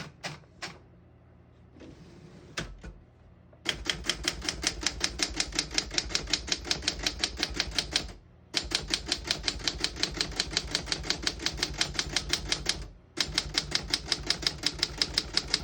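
A 1956 Olympia SM1 manual typewriter. A few separate clicks come first, then the typebars strike the platen in a fast, even run of keystrokes, about seven or eight a second. The run breaks off briefly twice.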